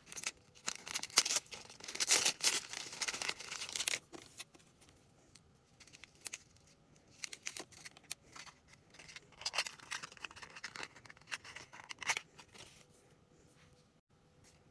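A crinkly plastic blind bag being torn open and rustled for about the first four seconds, then quieter, scattered crinkles and light taps as the small plastic pieces inside are handled.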